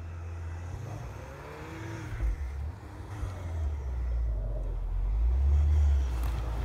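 Volkswagen Golf 7 R's turbocharged 2.0-litre four-cylinder engine revving as the car ploughs through deep snow, a low rumble growing louder as it comes closer and loudest about five to six seconds in.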